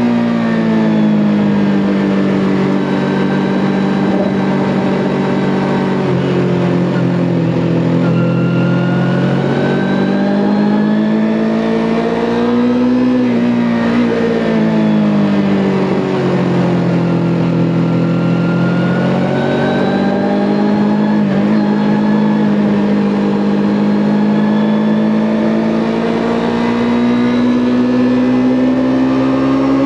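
Kawasaki Ninja 400's parallel-twin engine under way, its pitch rising and falling repeatedly as the throttle opens and closes, with a quick drop about halfway through. A steady rush of wind and road noise runs under it.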